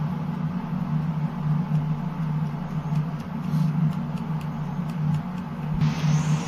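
A steady low background hum, with faint light taps and rustling as flour is shaken through a metal mesh sieve.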